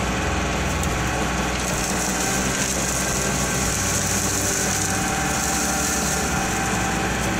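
Kubota L3901 tractor's three-cylinder diesel engine running steadily while it powers the BH77 backhoe grabbing brush.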